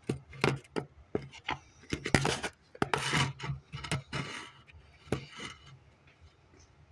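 Short, irregular scrapes and taps of hand cleaning, working debris out of a mouse nest. They fade out near the end.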